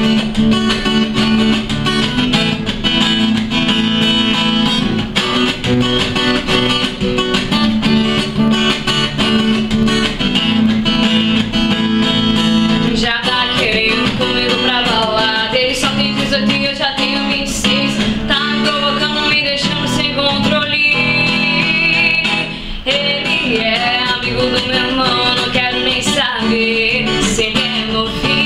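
Acoustic guitar strummed steadily in a sertanejo cover, with a woman's voice singing over it from about halfway through.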